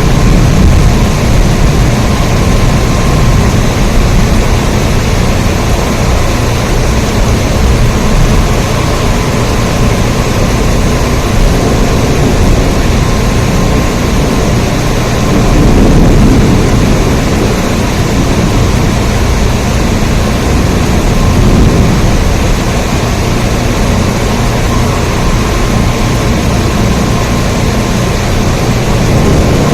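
Steady heavy rain, a dense, even rushing noise with a strong low rumble, swelling slightly about halfway through.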